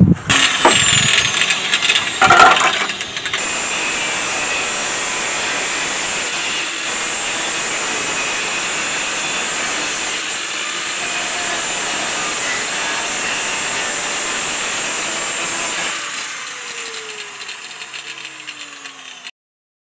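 Angle grinder cutting through a car's rusted steel rocker panel, a steady grinding with a few loud knocks in the first seconds. Near the end it comes off the metal and winds down with a falling whine.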